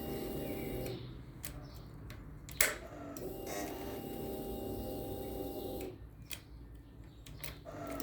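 Yamaha FZ1's electric starter spinning in bursts of a few seconds: a steady whine with no firing, stopping twice with clicks in between, one of them sharp, about two and a half seconds in. The engine does not catch, the no-start symptom that followed a valve clearance adjustment.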